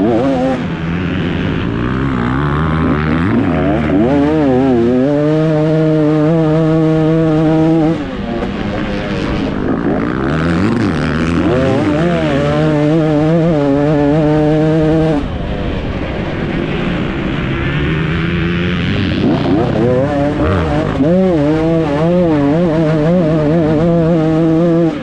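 2024 KTM 250 SX two-stroke single-cylinder motocross engine being ridden hard, revving up through the gears and held high on the straights. Twice the revs drop off sharply as the throttle is shut, then climb again.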